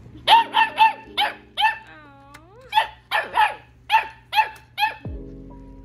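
Goldendoodle puppy barking in high, sharp yaps, about eleven in all, in two quick runs with a short gap a couple of seconds in.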